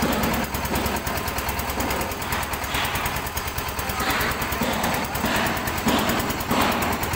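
Trailer-mounted concrete mixer's diesel engine running steadily with a rapid knocking beat, and a hiss that comes and goes over it.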